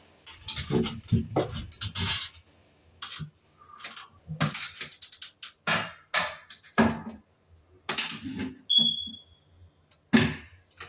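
Irregular clicks, knocks and scrapes of a hand tool working on a sheet-metal fluorescent light fixture as a stuck screw is forced out, with a brief high squeak near the end.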